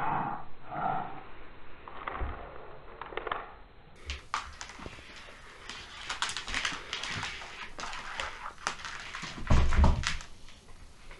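A cat playing with a toy mouse on a hard floor: irregular quick taps and clatter of paws and toy skittering across the tiles, with a few heavier thumps about nine to ten seconds in.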